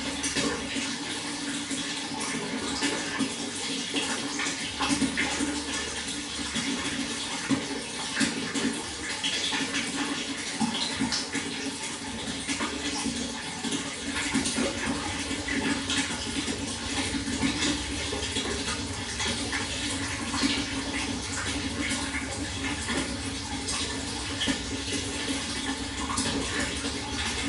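Running water flowing and splashing steadily, with many small splashes and trickles through a continuous rush.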